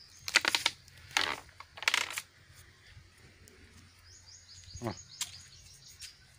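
Three short scratchy rustles in the first two seconds, then a small bird's quick series of faint high chirps in the second half.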